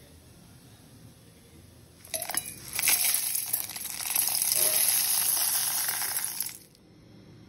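Whole dry spices (coriander seeds, peppercorns, toor dal, dried red chillies and curry leaves) poured into a stainless-steel mixer-grinder jar: a dense rattling and clinking of seeds hitting metal. It starts about two seconds in and stops abruptly about a second before the end.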